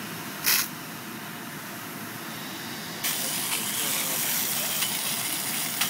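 Water flowing from a fire hose's smooth-bore nozzle, a steady rushing hiss. There is a short sharp spurt of hiss about half a second in, and about three seconds in the hiss turns suddenly louder and brighter.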